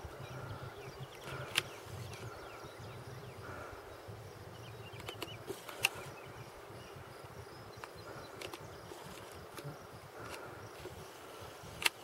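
Quiet outdoor ambience with a faint buzz that comes and goes, and three short sharp clicks: one about a second and a half in, one near the middle and one at the very end.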